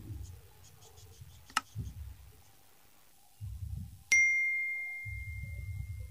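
A single bright bell ding about four seconds in, ringing out and fading over about two seconds: a subscribe-button notification-bell sound effect. A run of faint quick ticks and one sharp click come before it.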